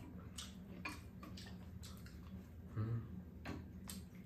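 Metal spoons and chopsticks clicking now and then against bowls and a pan while two people eat, with one brief low sound about three seconds in.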